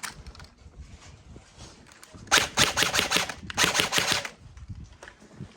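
Airsoft gun firing two quick full-auto bursts, a rapid string of shots in each, about a second apart, with a short pause between them.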